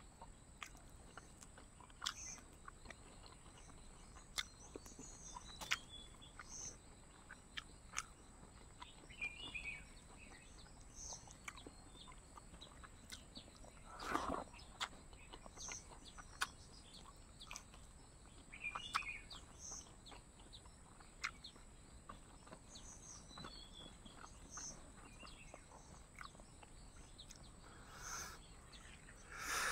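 Faint eating sounds of a person chewing a meal eaten by hand, with many small sharp clicks and smacks and a couple of louder mouth sounds about halfway and near the end. Birds chirp in the background, with a short high call repeating about once a second, over a steady high thin whine.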